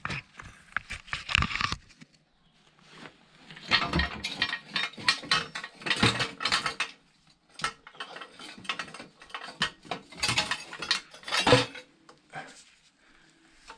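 Metal tools and parts clinking and clanking as they are handled, in three stretches of quick knocks with short pauses between.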